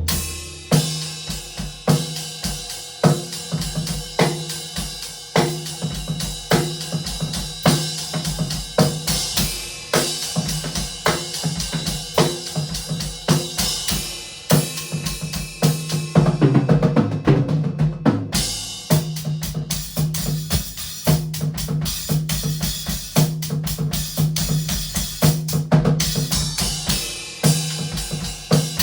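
Drum solo on a Pearl Zenithal Resonator acoustic drum kit with Zildjian L80 low-volume cymbals: bass drum, snare with rimshots, toms and cymbal wash played continuously, with a fast flurry of strokes a little past the middle.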